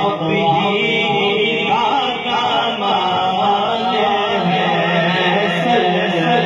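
Urdu devotional chanting of a manqabat: a voice sings a wavering, ornamented melodic line over a steady held drone underneath.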